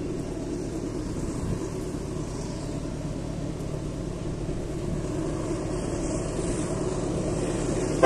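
Several diesel freight locomotives running steadily, pulling a train, the low engine rumble growing slowly louder as the train approaches.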